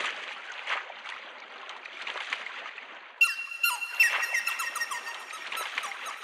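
Wooden oar dipping and sloshing through the water, with a run of short, high squeaks from the oar rubbing against the wooden boat starting about three seconds in.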